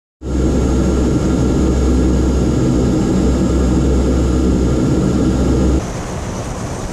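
Four Allison T56 turboprop engines of a Lockheed C-130 running on the ground: a loud, even drone with a deep rumble and a steady whine, heard inside the cockpit. About six seconds in the deep rumble drops away and the propeller noise turns thinner.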